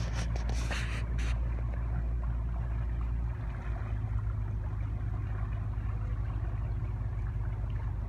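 Canal boat's engine running steadily with a low hum, with water washing along the hull; a few brief hissing splashes in the first second or so.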